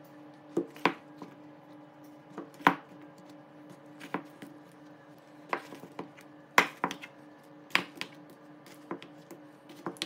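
A wide straight chopping blade with a wooden handle pressed down through soft doughnuts, knocking against a plastic cutting board in about a dozen irregular chops. A faint steady hum lies underneath.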